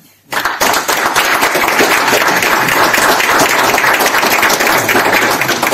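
Audience applauding: clapping starts abruptly just after the start, holds steady and dense, and dies away near the end.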